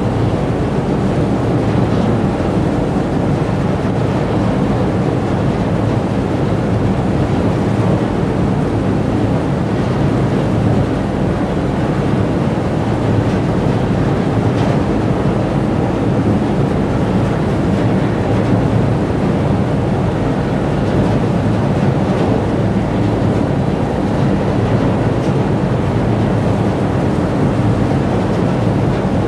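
Steady low drone of a boat's engine running under way, with water rushing along the hull and wind on the microphone.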